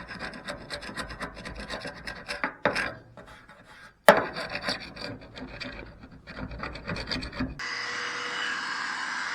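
Rapid, repeated scraping and scrubbing strokes as old weatherstrip adhesive is cleaned off a truck door edge, broken by a sharp knock about four seconds in. Near the end the scraping gives way to a steady hiss with a faint steady hum.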